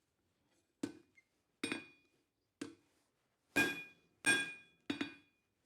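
Six hand-hammer blows on hot coil-spring steel over an anvil, spaced roughly a second apart, each with a short metallic ring; the last three blows are harder and louder.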